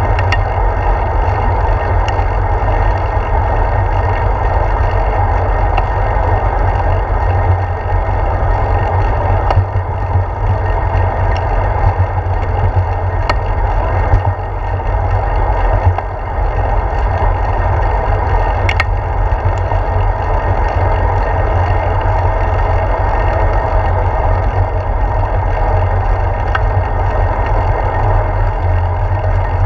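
Steady wind rumble and road vibration picked up by a handlebar-mounted GoPro Hero 4 on a moving bicycle, with a few sharp clicks scattered through it.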